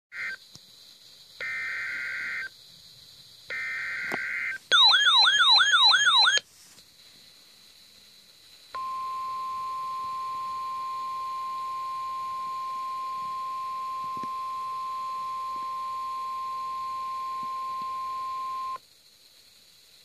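NOAA Weather Radio emergency alert coming through a handheld weather radio's speaker. It begins with screechy bursts of digital SAME header data. The radio's own loud warbling alert sounds for about two seconds, then the steady single-pitched NOAA warning alarm tone holds for about ten seconds, signalling that a warning is being issued.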